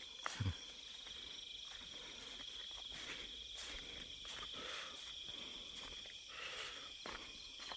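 Night chorus of crickets trilling steadily at a high pitch in a rice field. A brief low thump comes about half a second in, with a few faint clicks scattered through.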